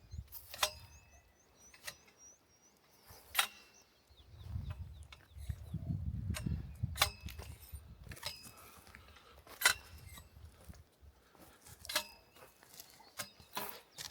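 Sharp knocks with a short metallic ring, seven of them a second or two apart, as of a metal tool striking hard ground. A low rumble swells in the middle, and faint high chirps come in a quick row near the start.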